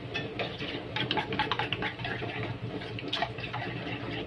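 A metal spoon stirring a thin mayonnaise sauce in a stainless steel bowl: quick, irregular clinks and scrapes of spoon on bowl with a wet sloshing.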